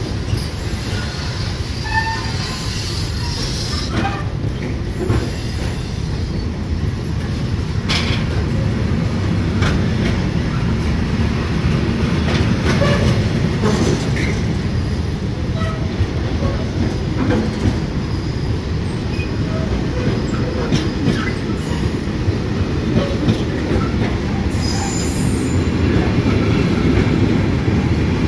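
A train running along the rails with a steady rumble of wheels, many sharp clicks as the wheels cross rail joints, and short wheel squeals scattered through it.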